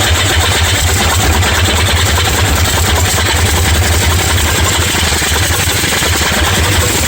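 Freshly rebuilt Ford Model A four-cylinder engine, converted for air-compressor use, running steadily on gasoline at idle just after starting.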